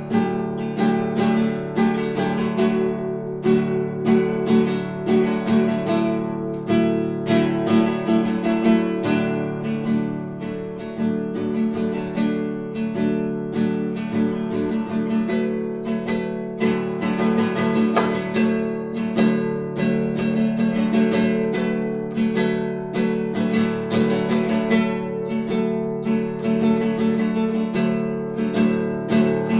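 Classical (nylon-string) guitar played solo, a continuous run of plucked notes several to the second with ringing chords, heard from a couple of metres away in a living room.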